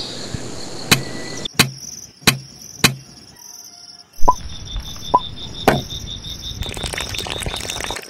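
Insects chirping in a steady, pulsing trill, with a series of sharp knocks: four in the first three seconds, a louder one about halfway and two more after it. In the last second or so, water pours into a small aluminium pot.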